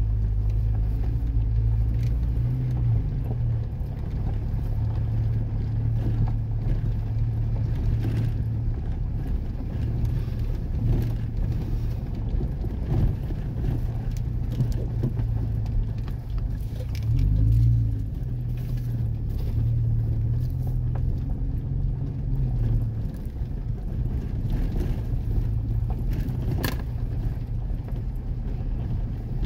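Vehicle running at low speed on a rough gravel dirt road, heard from inside the cabin: a steady low engine and tyre rumble with scattered knocks and rattles from the bumps. It swells briefly louder a little past halfway.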